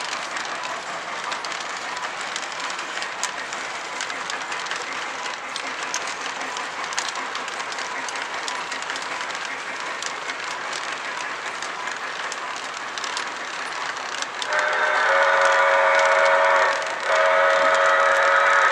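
Model train cars rolling along the track, a steady rolling noise with light wheel clicks. Near the end the LionChief Pere Marquette 1225 locomotive's sound system blows a steam whistle: one long blast, a brief break, then a second long blast.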